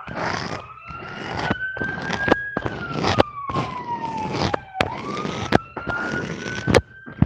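Fidget toys being handled: a whistle-like tone glides slowly up, down and up again like a siren, over a run of sharp clicks and rustling crinkles.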